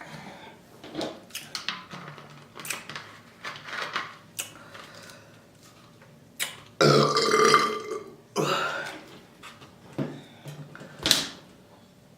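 A woman burping repeatedly: a few small sounds in the first seconds, then one long, loud burp about seven seconds in lasting about a second, followed by shorter burps.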